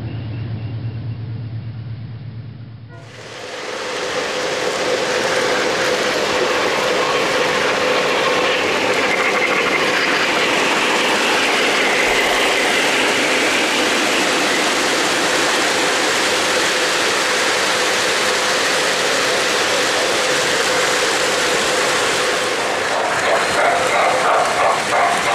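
O-gauge three-rail model trains running on the layout: a steady, dense rattling clatter of wheels over the track that starts about three seconds in, after a muffled sound fades out.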